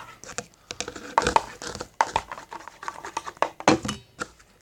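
Irregular clicks, taps and crinkling of plastic bottles and containers being handled, cutting off abruptly at the end.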